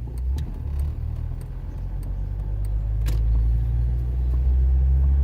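Car engine and road rumble heard from inside the cabin, a low steady drone that grows louder about halfway through, with light clicks about every half second in the first part.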